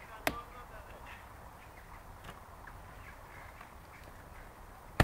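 Two sharp knocks, one just after the start and a louder one at the very end, over faint outdoor background noise.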